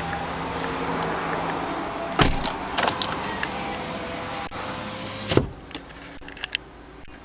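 Small electric motor in the door of a 2008 Mazda CX-7 (power window or side-mirror drive) running with a thin whine for a couple of seconds. A clunk comes about two seconds in and another sharp clunk as it stops about five seconds in, after which the background hum drops away.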